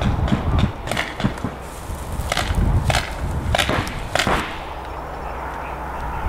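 Paintball markers firing: a scattered, irregular series of sharp pops, bunched most densely in the middle of the stretch.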